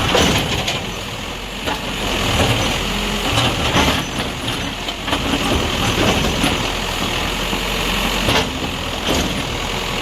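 Diesel engine of a heavy earth-moving machine running under work, with occasional knocks and clanks.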